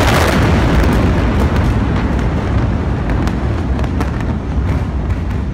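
Heavy rumbling roar of a massive explosion just after its blast wave has hit, loudest at first and slowly easing. Many sharp crackles and pops run through it.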